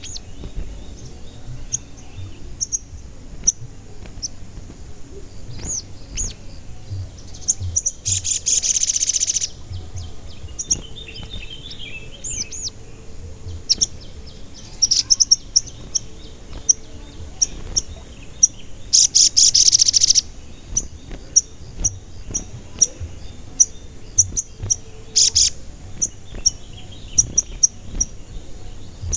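Sogon bird calling: repeated short, high 'cuit cuit' chirps, broken by a long dense trill about eight seconds in and again about nineteen seconds in.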